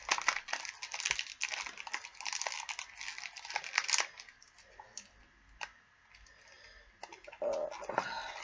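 Wrapper of a small candy package crinkling and crackling as fingers pick at it, trying to get it open. The crackles come thick and fast at first and thin out to scattered ticks after about four seconds.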